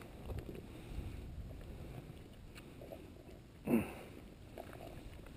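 Low rumble of wind and handling noise on the microphone, with one short voice-like sound about three and a half seconds in.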